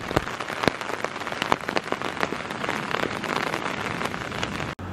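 Steady rain falling on a small forest creek and the wet undergrowth around it, with many close individual drop hits over an even hiss. It cuts off abruptly near the end.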